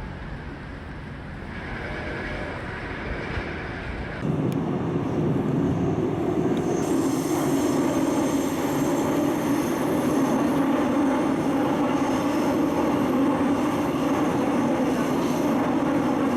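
Steady rumble of a moving vehicle, stepping up louder about four seconds in and then holding even.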